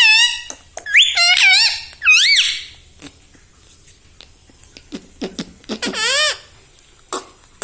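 Indian ringneck parakeet giving a series of shrill, squeaky calls: three bursts in the first few seconds, a lower call around the middle, and light clicks between them.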